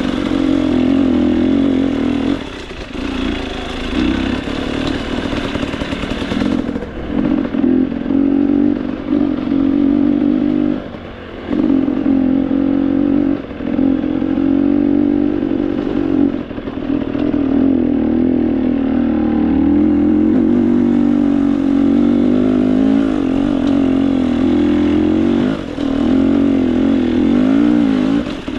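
Off-road motorcycle engine running while being ridden, its pitch wavering up and down. The sound drops briefly several times, most deeply about eleven seconds in.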